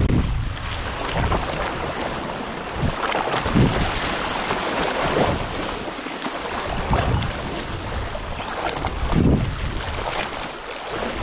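Sea waves washing, with wind buffeting the microphone in gusts, strongest at the start and about nine seconds in.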